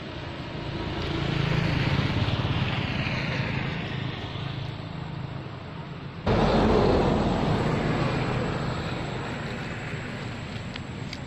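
Engine noise of a passing vehicle that swells and fades. About six seconds in, the loudness jumps abruptly and then slowly dies away.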